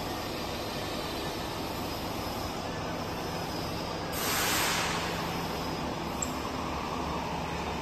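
Steady hum and noise of workshop machinery, with a brief loud hiss about four seconds in that fades after about a second.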